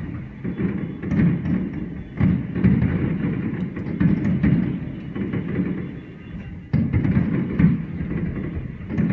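Fireworks exploding in quick succession: a continuous low rumble of overlapping booms with a few sharper bangs, one loud bang about two-thirds of the way through.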